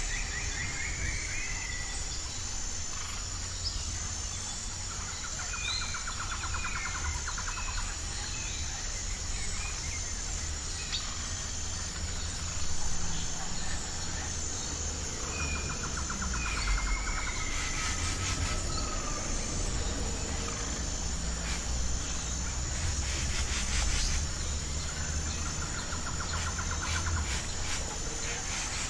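Several songbirds chirping and trilling, one repeating the same short trilled phrase about every ten seconds, over a steady high-pitched insect trill and a low rumble.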